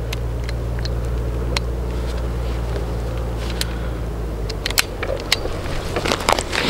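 Small metallic clicks of a Chiappa Rhino .357 Magnum revolver being handled and loaded, with a denser run of sharper clicks near the end, over a steady low rumble.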